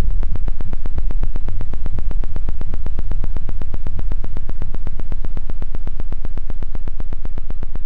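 Electronic film score: a fast, even pulse of static-like noise, about eight beats a second, over a deep bass drone.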